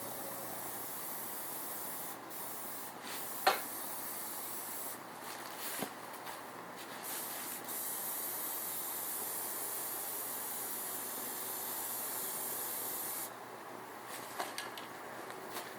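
Primer being spray-painted: a steady spray hiss that stops and starts again several times, with a few sharp clicks, the loudest about three and a half seconds in.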